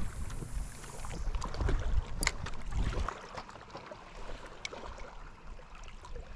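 Wind rumbling on the microphone, easing off about three seconds in, over water lapping against shoreline rocks, with a few sharp clicks.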